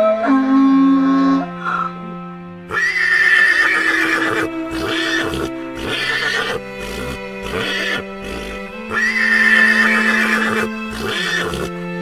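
An equine animal, horse or donkey kind, calling loudly in two long cycles, each a drawn-out high cry followed by a run of shorter pulses, the first starting about three seconds in and the second about six seconds later. Background music with steady held tones plays underneath.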